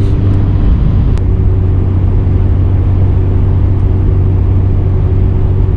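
Holden VL Turbo Commodore's turbocharged 3.0-litre straight-six (Nissan RB30ET) running at a steady light-throttle cruise, a constant low drone, with one sharp click a little over a second in.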